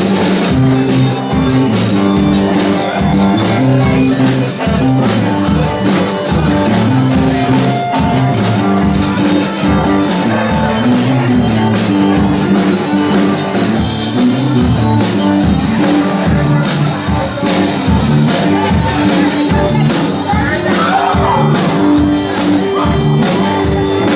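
Live rock band playing an instrumental passage between sung verses: guitars and bass over a drum kit keeping a steady beat.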